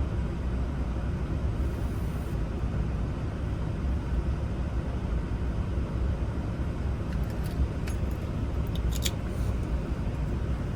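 Steady low background rumble with a few small, sharp metallic clicks between about seven and nine and a half seconds in. The clicks come from wafers being fitted into a Silverado ignition lock cylinder.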